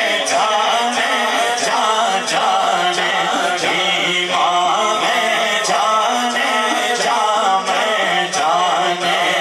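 Men's voices singing an Urdu naat unaccompanied into microphones, a lead reciter with a second voice chanting along in a slow, drawn-out melody.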